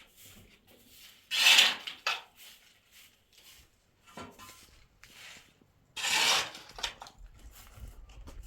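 Pots and dishes clattering and being scraped as they are handled, with two louder scraping noises of under a second each, about a second and a half in and about six seconds in.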